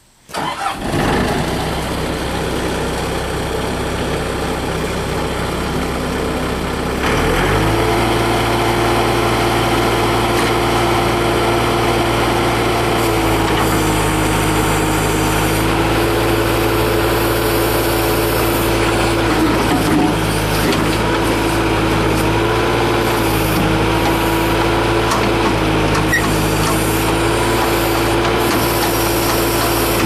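Bobcat 863 skid steer's diesel engine starting and idling. About seven seconds in it is throttled up to a higher steady speed and runs on while powering the backhoe attachment's hydraulics for digging, its note wavering and dipping slightly now and then.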